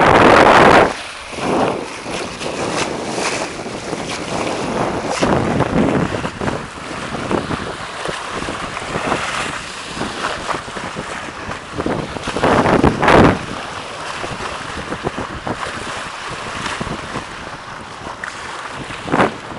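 Water rushing and splashing along the hull of a Beneteau Oceanis 361 sailing yacht under way, with wind buffeting the microphone. The wind comes in gusts, loudest right at the start and about two-thirds of the way through.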